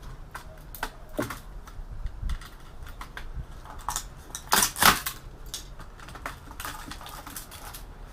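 Scattered clicks and light knocks of computer parts and boards being handled during disassembly, with a louder clatter about five seconds in.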